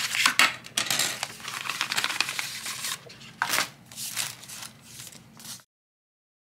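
Screen-protector packaging being handled and unpacked: cardboard and plastic rustling, with quick clicks and scrapes. It cuts off abruptly near the end.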